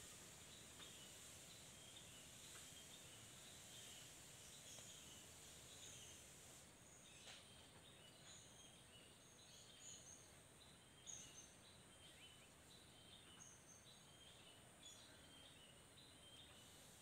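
Faint outdoor ambience: small birds chirping over and over in short notes, over a steady high hum of insects.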